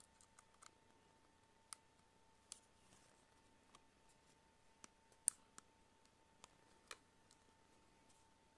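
Plastic pry tool working around the edge of a tablet's back cover, giving scattered small clicks and snaps as the cover's plastic clips give, the sharpest snap about five seconds in. A faint steady high hum runs underneath.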